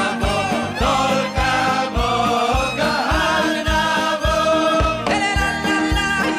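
Live band music with a singer's voice over a steady drum beat of about three beats a second.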